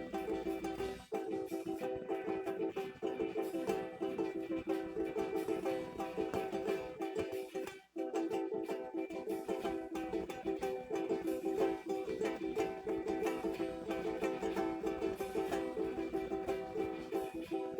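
Acoustic guitar strummed steadily through an instrumental passage of a song, with a brief break about eight seconds in.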